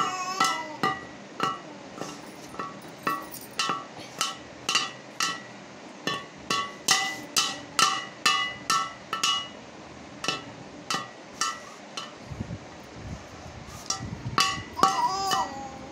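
A toddler beating an upturned metal bowl with two wooden sticks: uneven clanging strikes, about two a second, each ringing briefly. A short voice is heard near the end.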